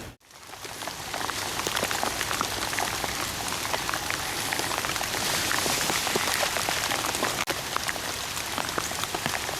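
Steady rain falling, with many separate drops hitting close by.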